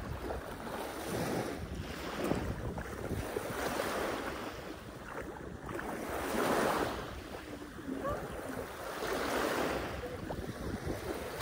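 Sea waves washing onto a beach, the surf swelling and fading every two to three seconds, with a low rumble of wind on the microphone.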